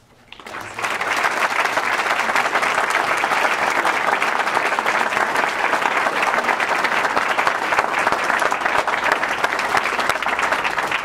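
Audience applauding: many people clapping, building up over the first second and then holding steady.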